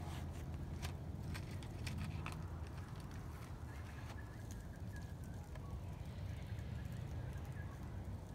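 Small wood-and-paper fire in a portable kettle grill crackling, with sharp pops, most of them in the first couple of seconds, over a low steady rumble.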